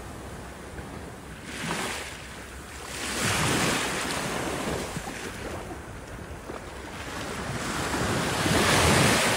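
Small waves washing up onto a sandy shore, surging three times, the last surge near the end the loudest, with wind buffeting the microphone.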